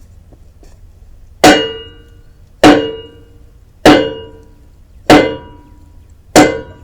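Five hammer blows on the steel beam of a log splitter, evenly spaced about a second and a quarter apart, each ringing out like a struck bell, as the partly cut weld is knocked to see whether it will break apart.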